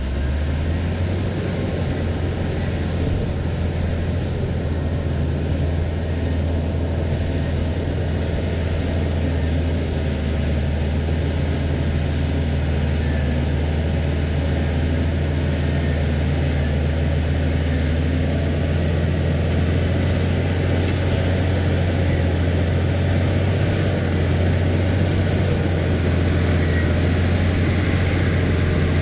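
Diesel engine of an earthmoving machine running steadily under load while pushing off topsoil: a continuous low engine drone that grows slightly louder near the end.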